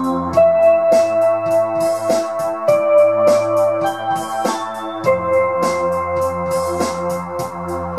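Electronic instrumental music: Korg microKORG synthesizer and Yamaha PSR-295 keyboard playing sustained chords and a bass line live over a looped drum beat from Native Instruments Maschine. The held notes change every second or two, and the drum strokes tick along at an even pace.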